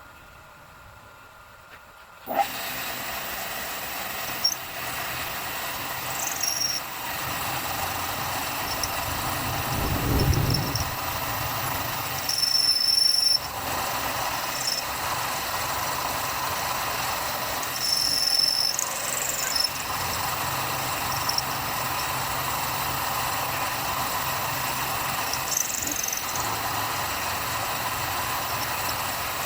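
A machine-tool motor starts about two seconds in and runs steadily, with short high squeals now and then.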